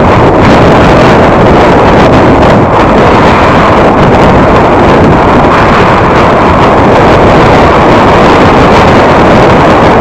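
A car driving along a road: a loud, steady rush of road and wind noise with no distinct engine note.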